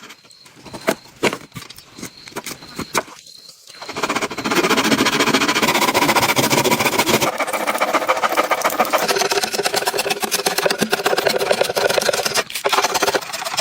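A few light knocks, then a small motorised tool starts about four seconds in and runs steadily with a fast, even buzz for about eight seconds, stopping near the end.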